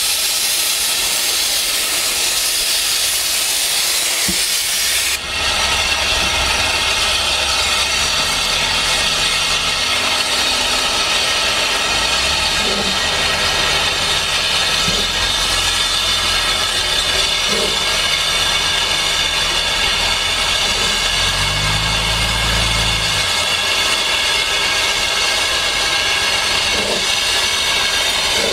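The 1863 narrow-gauge steam locomotive Prince, standing in steam and hissing: a loud, sharp steam hiss cuts off suddenly about five seconds in, and a steadier, softer hiss of steam carries on after it.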